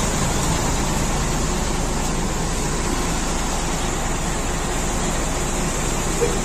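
Bus diesel engines idling, a steady low rumble.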